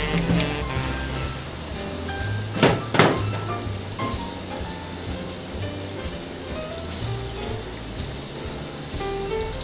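Water hissing steadily from a spray nozzle onto metal lathe tailstock parts being washed by hand, with two sharp knocks close together about three seconds in.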